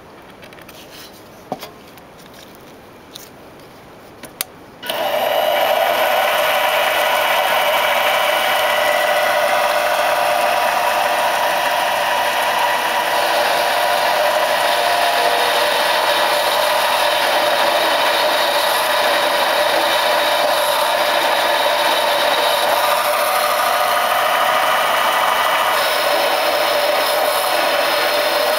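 A few faint clicks, then about five seconds in a micro lathe starts and runs steadily, its motor and spindle whirring with a steady tone while a drill bit in the tailstock chuck bores out the inside of a tiny model-engine piston.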